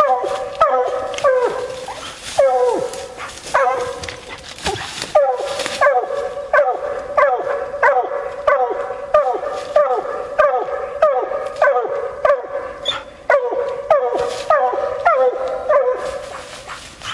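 Bluetick coonhound barking steadily at a tree, short barks about two a second, each dropping in pitch, with a brief pause about four seconds in: the hound's tree bark, the sign that a raccoon is treed.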